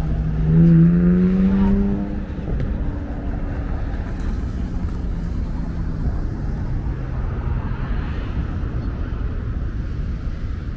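Motor vehicle engine going by, its note rising slightly and loudest in the first two seconds. After that comes a steady low traffic rumble.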